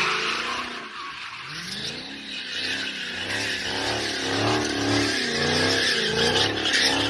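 Car tyres squealing with a pitch that wavers up and down, over the engine running, as in drifting or skidding. The sound dips about a second in and builds again after that.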